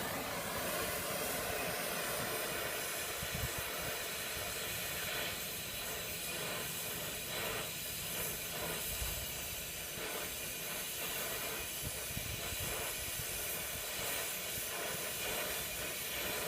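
Brazing torch flame hissing steadily while a copper fitting on an HVAC thermal expansion valve is heated and brazed.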